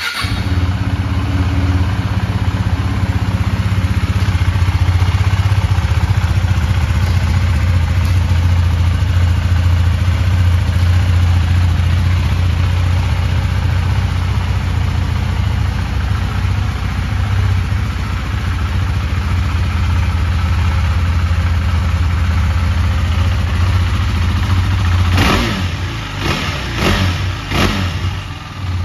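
KTM 390 Duke's single-cylinder engine catching at once on the starter and idling steadily through its stock exhaust. Near the end the throttle is blipped a few times in quick succession, the revs rising and falling each time.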